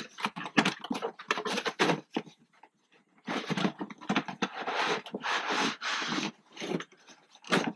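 Cardboard packaging being handled: a run of short taps and rustles, then, about three seconds in, two longer scraping rasps as the box's lid is slid off.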